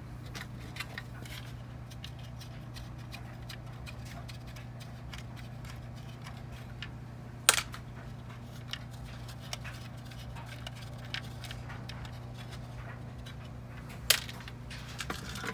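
Small brass standoffs and plastic parts being handled and fitted together, with light clicks and taps throughout and two sharp clicks, one about halfway through and one near the end, over a steady low hum.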